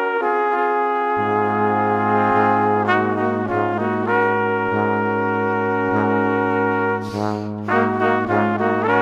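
Background music: a melody of held notes changing every second or so, with a steady bass line coming in about a second in.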